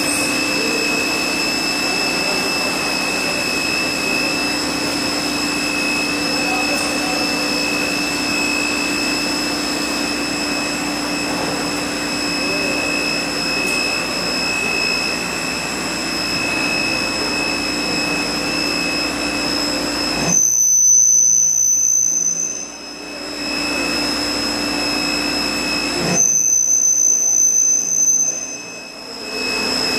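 Steady running noise of a Rüsch RDU302-600 automatic beam drilling and sawing line, with a constant hum and several steady high whining tones. Twice, about two-thirds through and again near the end, a louder high-pitched whine takes over for two to three seconds.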